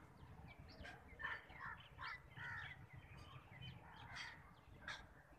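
Birds calling: a series of short, repeated calls, faint over a low steady rumble.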